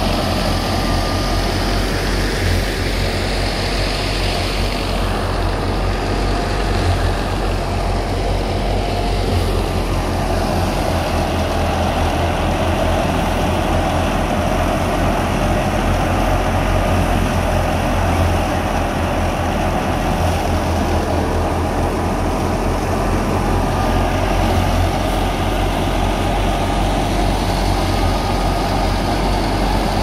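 Wheat thresher driven off the PTO of a Ghazi tractor, running steadily under load while sheaves are fed in: the tractor's diesel engine hums low and constant under the threshing drum and fan's continuous rushing noise.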